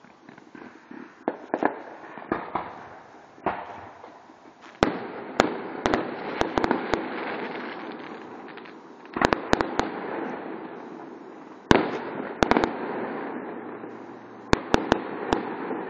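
Fireworks display: aerial shells bursting in clusters of sharp bangs every few seconds, with a steady rushing noise between the clusters.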